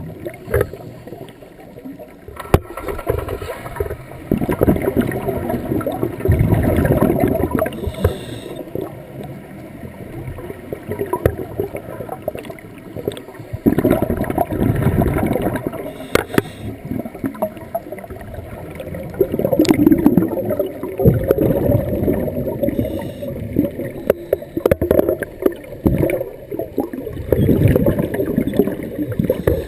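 Scuba diver breathing through a regulator underwater: exhaled bubbles gurgle and rumble past the camera in surges every five or six seconds, with quieter gaps between breaths.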